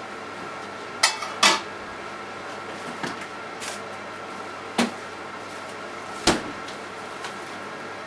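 Microwave oven running with a steady hum while heating potatoes. Several sharp clicks or knocks come at uneven intervals above the hum, two close together about a second in and another near the end.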